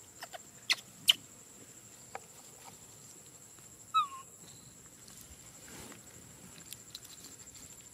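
A baby macaque gives one short squeak that falls in pitch, about four seconds in. A few sharp clicks come in the first two seconds, over a steady high-pitched buzz.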